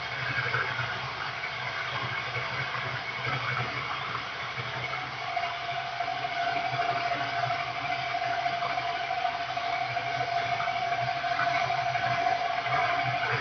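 Electric bike motor and drive running steadily on a test bench, a low hum with noise above it. A steady high tone sets in about five seconds in and holds.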